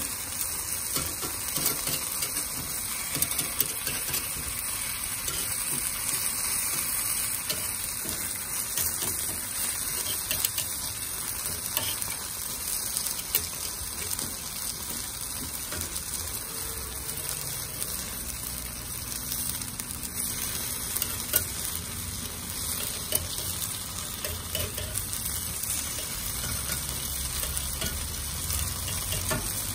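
Takoyaki batter frying and sizzling in the wells of a three-plate takoyaki griddle. Now and then a sharp click comes from the metal pick turning the balls.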